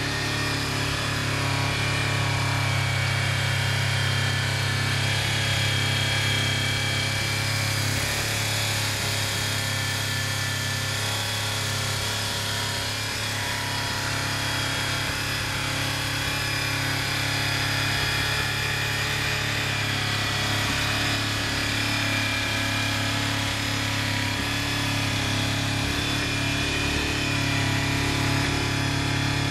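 Honda CBR400RR's 399 cc inline-four engine running steadily through an aftermarket aluminium silencer, with an even, unchanging engine note and no revving.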